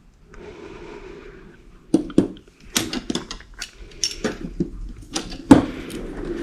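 Metal hand tools clinking and clattering: a run of irregular sharp knocks and clicks, with one louder clack about five and a half seconds in.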